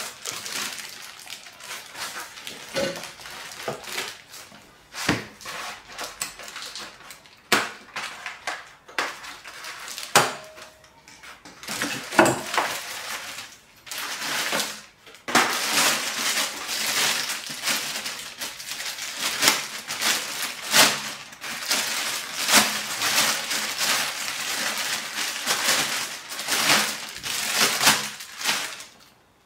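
Plastic wrapping crinkling and rustling as it is pulled off a kids' scooter's deck and handlebar, with a few sharp knocks as the parts are handled. The crinkling turns loud and dense about halfway through and stops just before the end.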